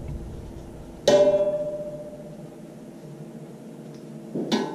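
Background instrumental music with plucked, guitar-like notes: one note struck about a second in that rings and fades, and two more near the end.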